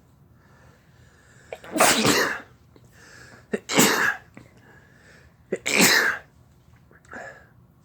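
A person sneezing three times in a fit, about two seconds apart, with a softer short sound near the end; the sneezes are induced by chhinkni, a sneeze-provoking herb.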